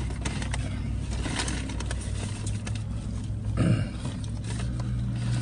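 Foil sandwich wrapper crinkling and rustling as a chicken sandwich is unwrapped by hand, over a steady low hum in the car. A brief low vocal hum comes a little after halfway.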